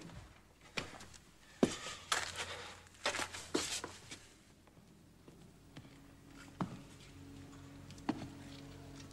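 A few scattered knocks and scuffing sounds, like movement and footsteps on a hard floor. About halfway through, quiet film score comes in with low held notes.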